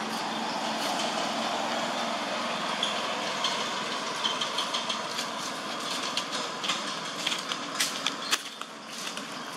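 Dry leaf litter crackling and rustling in short irregular bursts as it is walked on, busiest from about four to eight seconds in, over a steady background hiss.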